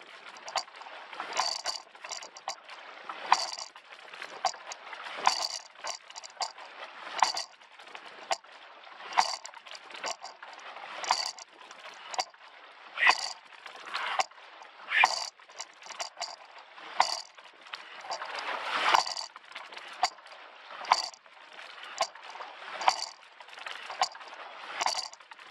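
Coxless four rowing shell under way at a steady stroke: a sharp knock and splash from the sweep oars at each stroke, about one every two seconds, with water washing along the hull in between.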